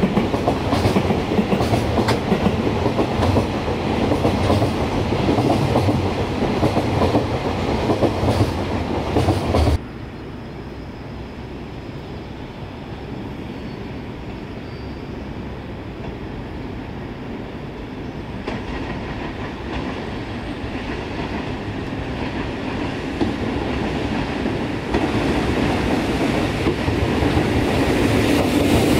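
Container wagons of a freight train rolling past, cutting off abruptly about a third of the way in. After a quieter stretch, an EF65 electric locomotive hauling container wagons approaches, growing louder toward the end.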